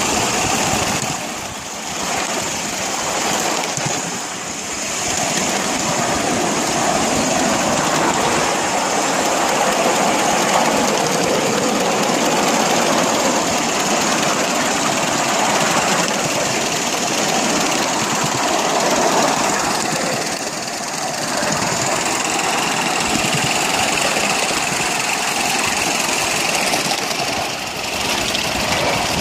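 An engine running steadily, with its level dipping briefly a few times.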